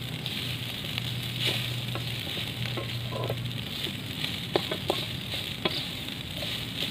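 Fried rice sizzling in a wok over a wood fire while a spatula stirs and scrapes it, with a few sharp clinks of the spatula against the pan in the second half.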